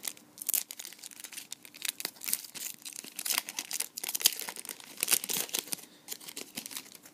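The packaging of a trading card being torn open and crinkled by hand: a run of irregular crackles and rustles.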